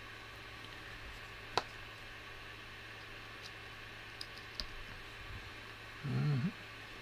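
Small clicks and taps of parts and tools being handled on a workbench: one sharp click, then a few faint ticks, over a steady low hiss. Near the end comes a short hummed murmur, about half a second long.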